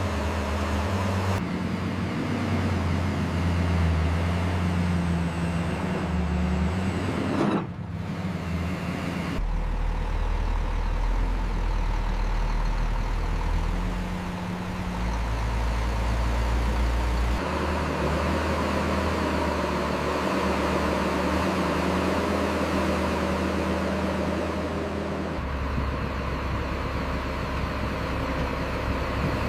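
Giant mining dump truck's engine running with a deep, steady low hum, its pitch and tone changing abruptly several times.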